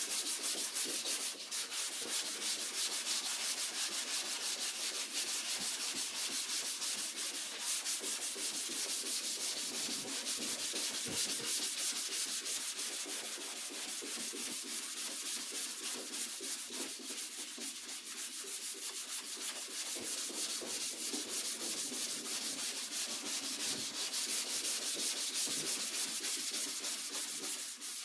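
Hand block sanding: sandpaper on a long sanding block rubbed back and forth over the primed, guide-coated steel of a car's rear quarter panel, a continuous gritty hiss that pulses with each stroke.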